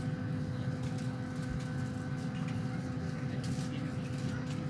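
Steady drone of an airliner cabin: engine and air-conditioning noise with a low rumble and a few constant hum tones, and a few faint ticks near the end.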